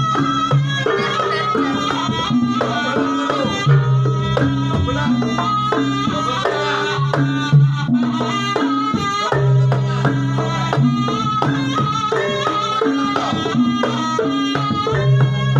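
Jaranan dance music: traditional folk music with hand-drum percussion and a repeating melody over a steady beat.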